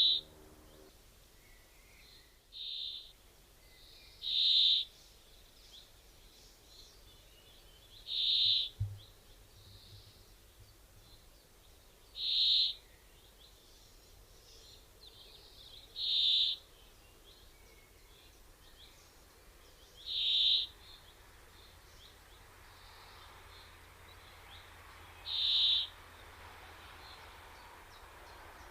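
A bird giving a short, high single-note call over and over, about every four seconds, over a faint steady background hum.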